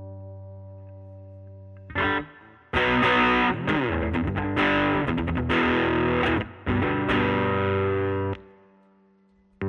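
Electric guitar with P90 pickups played through a Laney Lionheart L5 Studio valve amp's gain channel and a 15-inch Jensen Alnico speaker, overdriven. A held chord fades out, then distorted chords come in two choppy bursts before stopping short, and a new chord hits right at the end.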